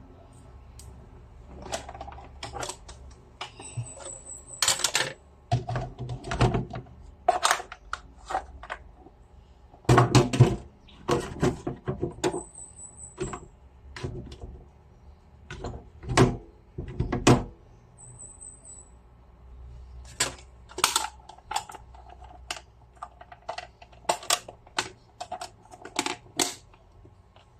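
Irregular clatter of objects being handled: quick clicks and knocks with a few heavier thuds, over a faint steady hum, with three brief high-pitched chirps.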